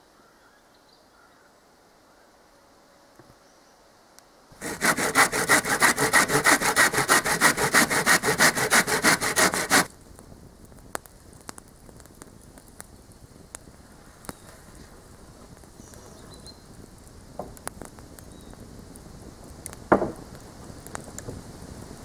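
Hand saw cutting through wood, about three strokes a second for some five seconds, then stopping. Faint rustling and a single sharp knock follow.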